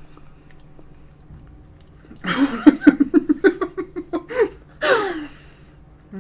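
A woman giggling with her mouth closed, a quick run of short bursts of about six a second lasting about two seconds, ending in a falling, breathy laugh.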